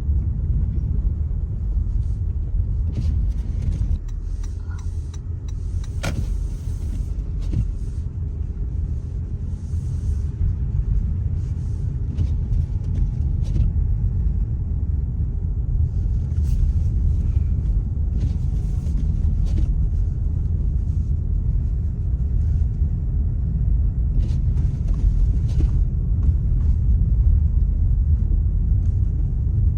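Steady low rumble of a car driving on snowy roads, heard from inside the cabin, with a few brief clicks scattered through it.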